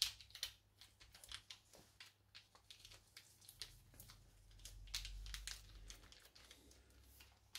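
Faint crinkling and small clicks of plastic film as hands press and shape a ground-beef patty between sheets of film, with a faint low hum about halfway through.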